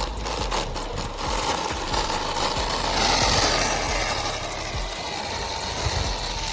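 Electric RC car driving, its motors and tyres making a steady rough noise that is loudest about three seconds in.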